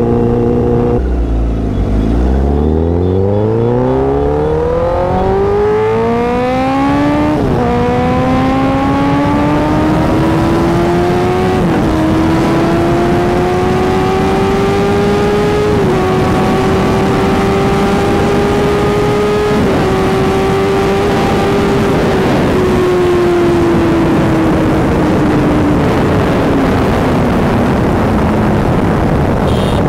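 Honda CBR1000RR's inline-four engine accelerating hard from the rider's seat, over rushing wind: the revs climb steeply, with three upshifts about 7, 12 and 16 seconds in, then hold high and fall away as the bike slows near the end.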